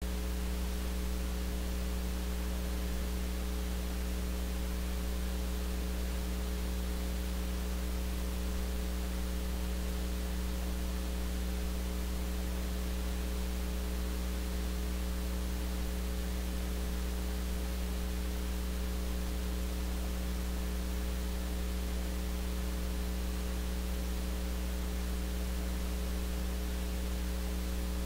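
Steady electrical mains hum, several fixed low tones that never change, under a constant hiss.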